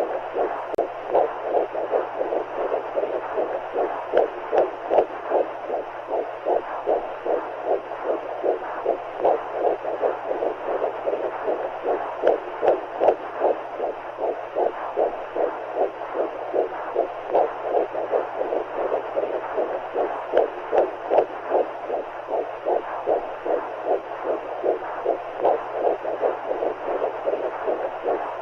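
Womb sound for soothing a baby: heartbeats pulsing in a quick, even rhythm over a steady whooshing hiss of fluid.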